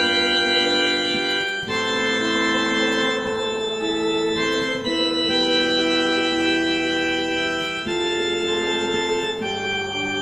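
Hymn accompaniment played on an electronic keyboard with an organ sound: slow, held chords that change every second or two.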